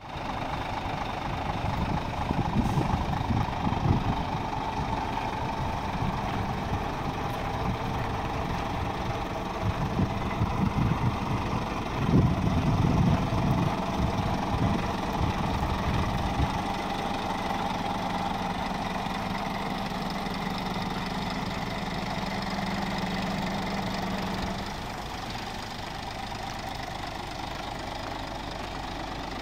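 Scania R 450 tractor unit's diesel engine idling steadily, with irregular low rumbles through the first half. The hum drops a little in level near the end.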